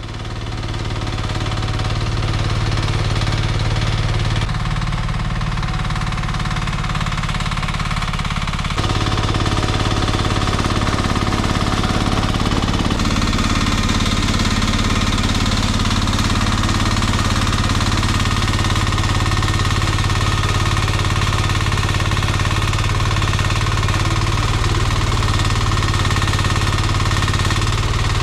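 Small mini excavator engine running steadily with a strong low hum, its sound shifting slightly about four and nine seconds in.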